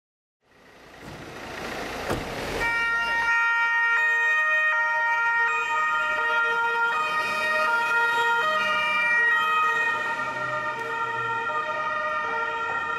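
Several Italian police cars' two-tone sirens sounding together, their alternating high and low notes overlapping out of step. The sound fades in over the first couple of seconds.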